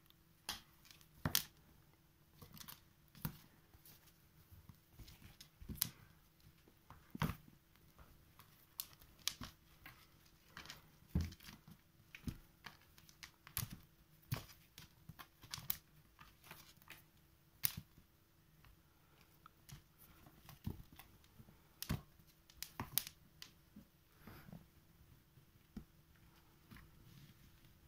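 Kittens playing with boot laces: irregular light taps, scratches and rustles of paws and laces against leather boots and the floor. A faint steady hum runs underneath.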